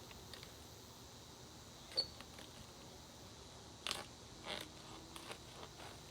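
A few separate clicks and short scraping strokes of a green coconut's husk being worked at on a rock, the sharpest click about two seconds in.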